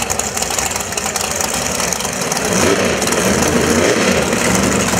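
Drag car engine running over steady track noise, with a few revs that rise and fall from about halfway in.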